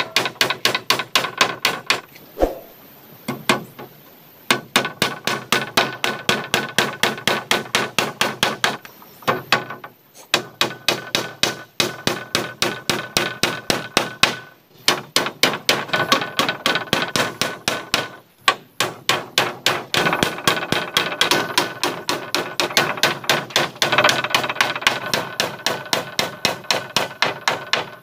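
Claw hammer driving nails through slats into a wooden roof frame: quick runs of strikes, about three to four a second, each with a short metallic ring, broken by brief pauses between nails.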